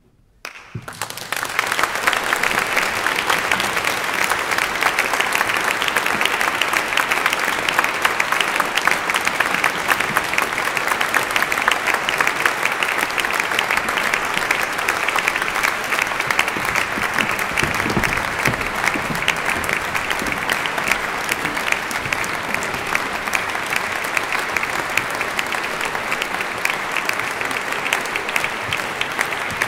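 Concert audience applauding: dense clapping that starts suddenly about half a second in, builds within a second and holds steady.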